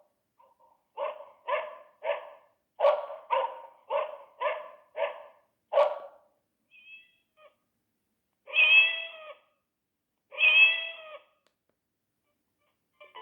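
Sagem myX-3 mobile phone playing an animal-sound tone from its speaker: about ten quick barks roughly half a second apart, then two longer meows.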